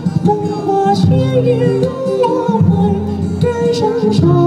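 A singer singing a song into a microphone, amplified through loudspeakers, over instrumental accompaniment.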